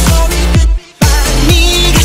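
Electronic dance-pop music with a steady kick-drum beat, about four beats a second. About two-thirds of a second in, the music cuts out suddenly for about a third of a second, then comes straight back in.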